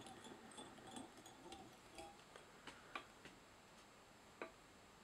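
Near silence with faint handling sounds at a fly-tying vise: light rustle at first, then a few scattered small clicks, the last and sharpest near the end.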